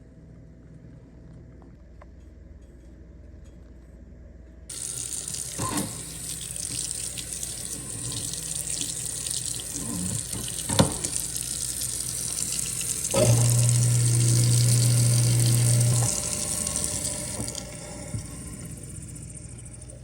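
Kitchen tap water running into a sink, switched on suddenly about five seconds in and easing off near the end, with a few knocks of items in the sink. A loud low hum joins for about three seconds past the middle.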